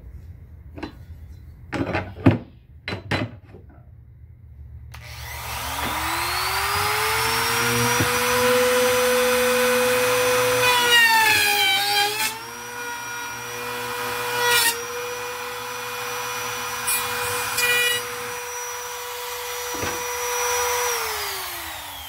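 A few knocks as the tool and square are set in place, then a compact trim router with a straight bit spins up to a steady high whine and cuts a channel into a chest freezer's plastic top trim. About halfway the pitch sags and the bit chatters briefly as it bites into the plastic, then it runs on steadily and winds down near the end.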